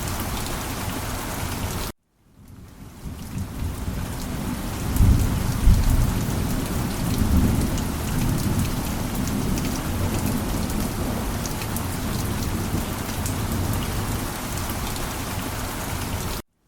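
Heavy rain falling steadily, with a low rumble of thunder from about five to eight seconds in. The sound cuts out abruptly twice, about two seconds in and just before the end, and fades back in within a second or so each time.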